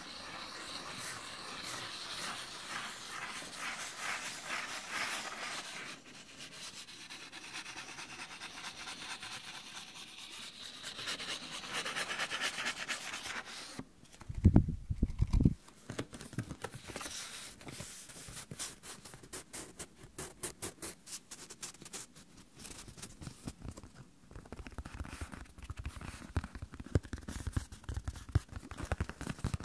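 Sheets of paper rubbed and rustled together close to the microphone. About halfway through come a few loud, low thumps, followed by a run of quick small crackles and clicks.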